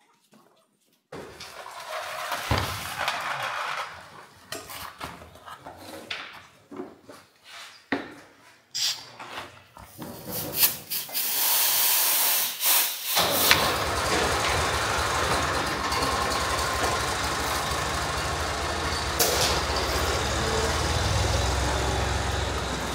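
Irregular metal knocks and scrapes of tool work on a brake caliper. From about 13 seconds a tractor engine runs steadily close by, its low rumble growing stronger toward the end.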